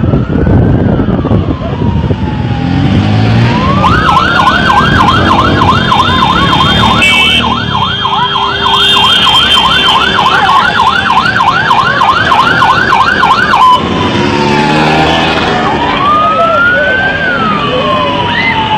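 Emergency vehicle siren sounding a slow rising-and-falling wail, switching about four seconds in to a fast yelp of about three sweeps a second, then back to the slow wail near the end, over the low rumble of a vehicle on the move.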